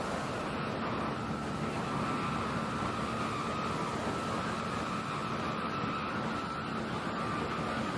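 Small motorboat under way, its engine running steadily with a steady high tone over the rush of water and wind.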